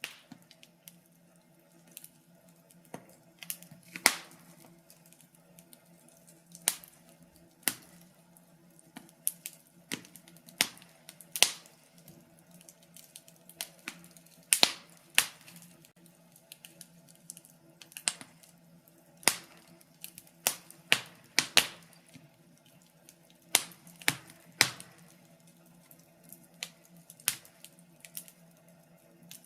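Wood fire crackling: irregular sharp pops and snaps, a few each second and some much louder than others, over a faint steady hum.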